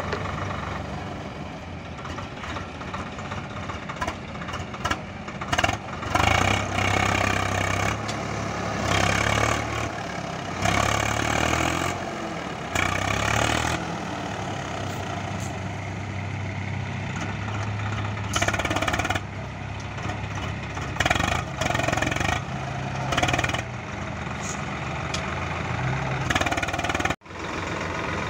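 Swaraj 744 XT tractor's three-cylinder diesel engine labouring as it hauls a fully loaded mud trolley through soft ground, revving up in repeated surges every second or few, with a brief break near the end.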